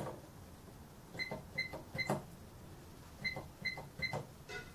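Sam4S ER-180U cash register keypad being pressed repeatedly, each press giving a short high beep with a key click. There are two quick runs of three presses, one starting about a second in and the other about three seconds in: multi-tap entry of letters for a product description.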